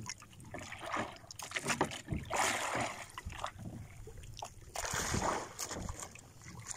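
Sea water sloshing and slapping against the hull and outrigger float of a small outrigger canoe, coming in uneven surges.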